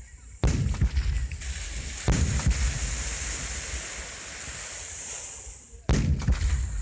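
Water-surface fireworks bursting in fan-shaped sprays: three booms, about half a second, two seconds and six seconds in, the first and last loudest. Between them is a steady hiss as the stars burn.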